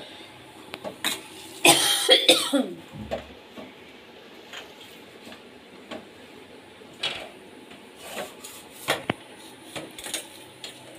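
A person coughs loudly about two seconds in. Around it come soft scraping and light clicks of fingers kneading crumbly chhana (fresh milk curd) against a steel plate.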